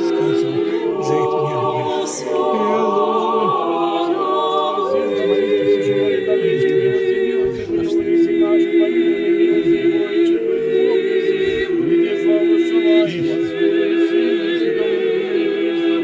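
Orthodox church choir singing a cappella: several voices hold long, slightly wavering notes in harmony.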